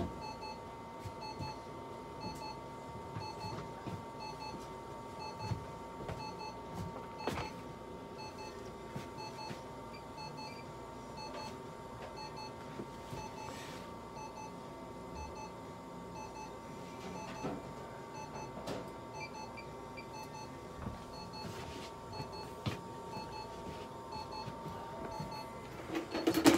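Therapy laser unit sounding a short double beep about once a second over a steady electronic tone, the audible signal that the laser is emitting.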